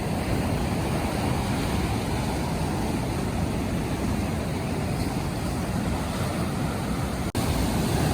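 Surf washing steadily onto a sandy beach at low tide, with wind rumbling on the microphone; the sound cuts out for an instant near the end.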